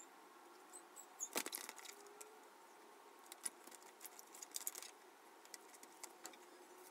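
Faint handling noise of wet paper strips being pulled from a basin and smoothed onto a rubber balloon for papier-mâché. Soft crackles and light clicks come in two clusters, about a second and a half in and again from about three and a half to five seconds.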